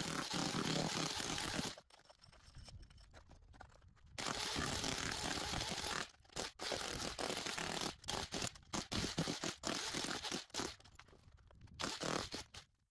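Electric SDS hammer in chisel mode breaking up concrete, a faint, even rasping noise that cuts out abruptly several times, the longest gap about two seconds in.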